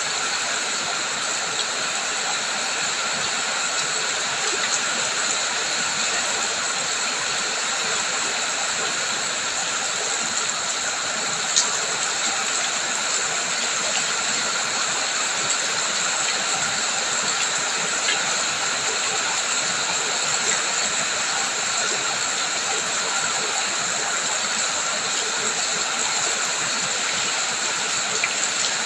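Steady rain and running water, an even hiss with a few sharp drip-like ticks, the loudest about eleven seconds in.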